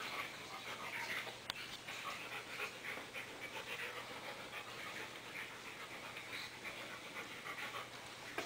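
Siberian husky panting steadily in quick, breathy pulses, close to the microphone. There is a single sharp click about a second and a half in.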